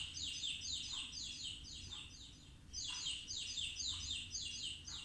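Newly hatched chicks peeping: rapid, high-pitched peeps at about five a second, in two runs with a short break around two and a half seconds in.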